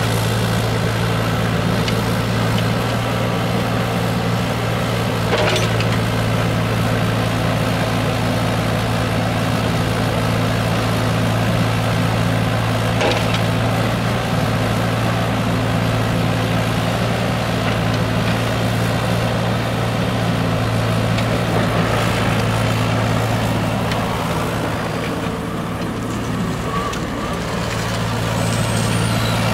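Yanmar ViO38 mini excavator's diesel engine running steadily under hydraulic work as the boom, bucket and swing are operated, with a few short knocks along the way. The engine note dips slightly near the end.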